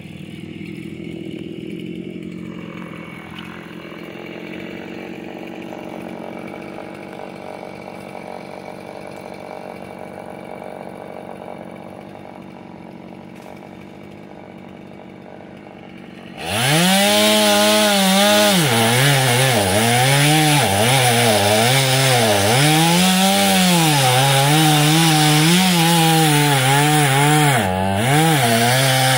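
A two-stroke gas chainsaw runs at low speed for about sixteen seconds, then is throttled up suddenly and cuts into a tree trunk. Its pitch dips and recovers again and again as the chain bites into the wood, with one short easing of the throttle near the end.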